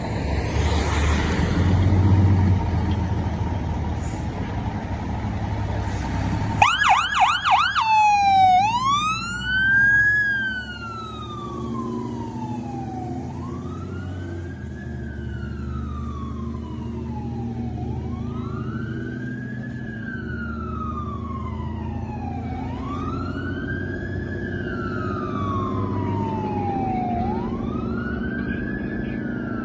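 Fire ladder truck's engine running; about six and a half seconds in its siren starts with a few fast yelps, then settles into a slow wail rising and falling about every four and a half seconds over the engine.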